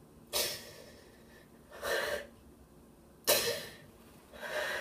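A woman crying: four short, breathy sobbing gasps and sniffles, spaced about a second and a half apart.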